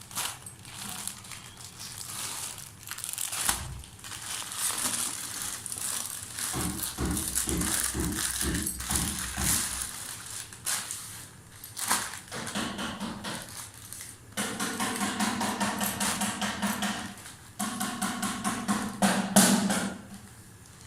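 Plastic parcel packaging crinkling and rustling as it is handled and opened, with scattered sharp crackles and a few longer scraping, buzzy stretches near the end.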